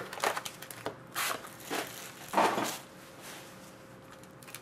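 Cardboard trading-card box being handled and a foil-wrapped card pack slid out of it, a few brief scraping and rustling sounds. The loudest comes about two and a half seconds in, and it is quieter after that.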